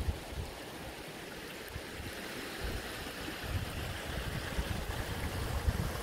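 Shallow river water trickling and rippling over flat rock slabs, a steady hiss of flowing water. From about halfway through, wind buffets the microphone with an uneven low rumble.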